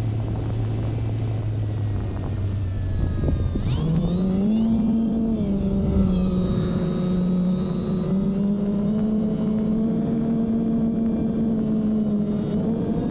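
Electric motor and propeller of an OMP Bighorn RC plane running on a 3S battery, a steady droning tone that rises sharply in pitch about four seconds in as the throttle is opened, then holds at the higher pitch with small wavers.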